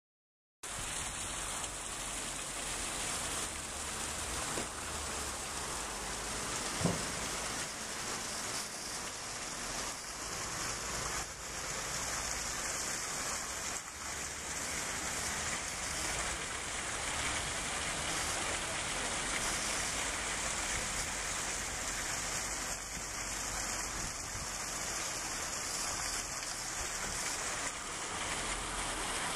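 Steady outdoor street ambience: an even hiss over a low rumble, with one short knock about seven seconds in.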